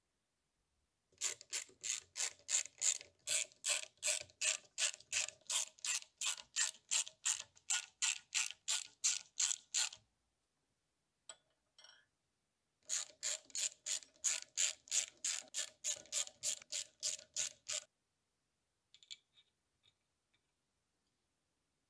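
Ratcheting hex driver clicking evenly, about four clicks a second, as it turns socket-head screws into a steel lathe carriage block. There are two long runs with a pause of a few seconds between them, then a few light metal clicks near the end.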